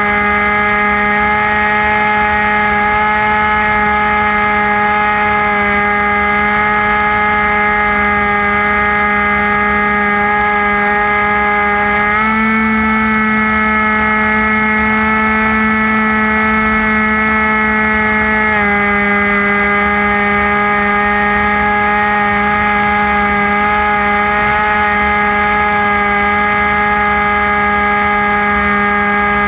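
Brushless electric motor and pusher propeller of a HobbyKing Bixler model glider running in flight, heard from the cockpit camera as a steady whine over wind rush. The pitch steps up about twelve seconds in and drops back about six seconds later as the throttle changes.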